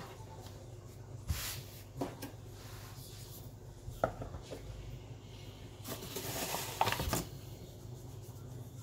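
Kitchen knife cutting through folded fresh noodle dough on a worktop: a few light knocks as the blade meets the counter, the sharpest about four seconds in, then soft rustling of hands handling and flouring the dough.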